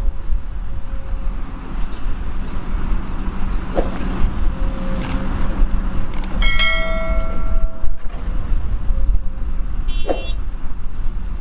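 Heavy earthmoving machinery working: a crawler excavator and articulated dump trucks with their diesel engines running in a deep, steady rumble. Sharp metal knocks sound now and then, and there is a ringing metallic screech for about a second and a half in the middle and a shorter high ring near the end.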